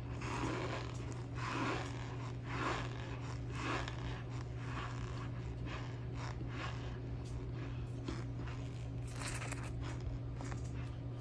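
A white plastic spoon scraping and scooping into a mound of cornstarch. The rasps come about once a second for the first four seconds, fainter through the middle, with another strong one near the end. A steady low hum runs underneath.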